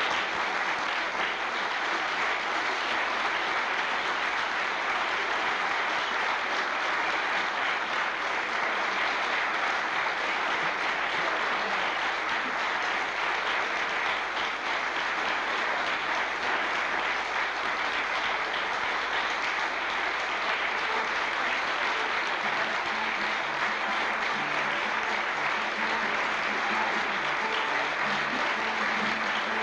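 Theatre audience applauding, a dense, steady clapping that keeps up without letup.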